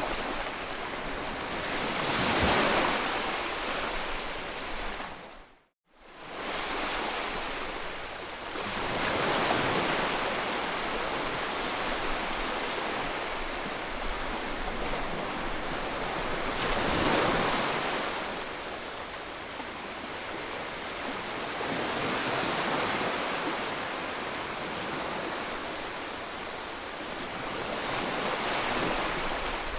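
Ocean surf: waves breaking and washing ashore in a steady rush that swells up every six or seven seconds. The sound cuts out briefly about six seconds in.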